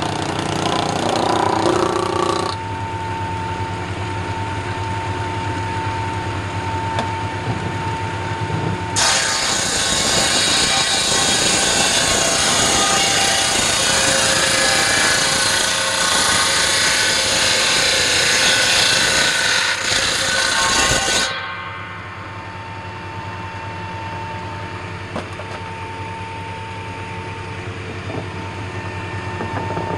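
Table saw cutting a bark-covered log. The blade runs with a steady hum and a thin high whine, cuts briefly at the start, then bites in for a long, loud, harsh cut from about nine seconds to about twenty-one seconds before spinning free again, quieter.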